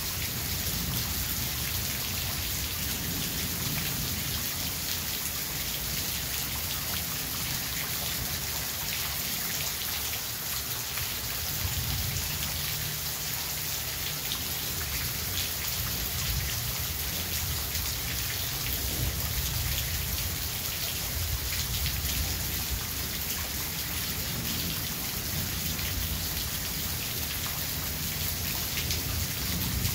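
Steady rain falling, with low rumbles of distant thunder swelling now and then in the middle.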